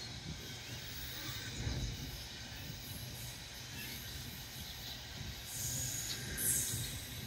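Loaded container wagons of a freight train rolling past on the rails: a steady low rumble from the wheels, with a brief higher hiss about six seconds in.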